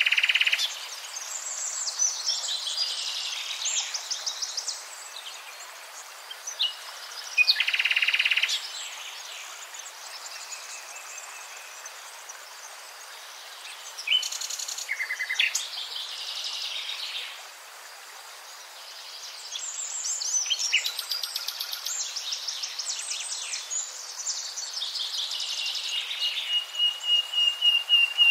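Several songbirds singing and calling: overlapping high trills and chirping phrases, with a long, fast, even trill near the end.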